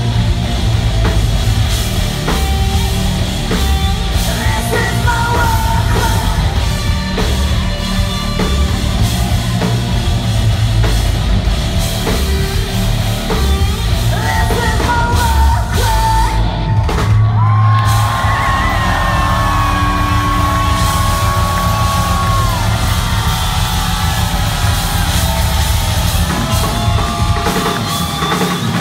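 A live rock band playing: distorted electric guitars, bass and a drum kit, with a woman singing and yelling over them. A long held note comes in about halfway through.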